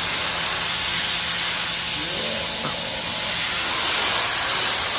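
Kärcher pressure washer blasting a jet of water onto a grimy concrete floor: a steady, loud hiss.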